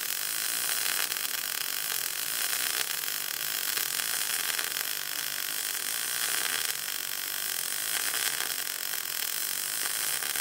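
MIG welding arc from an ESAB Fabricator running continuously with a steady crackling hiss as it lays a bead of stacked dimes in a swirl pattern on an inside corner joint.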